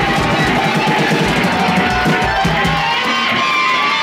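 Live rock duo of electric guitar and drum kit playing loud and hard. About three seconds in the drumming breaks off, leaving held guitar notes ringing.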